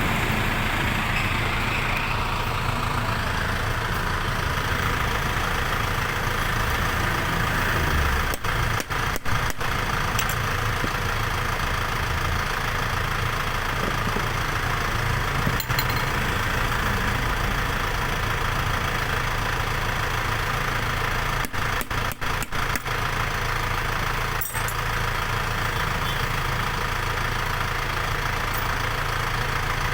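Vehicle engine idling steadily, with a few momentary dips in level.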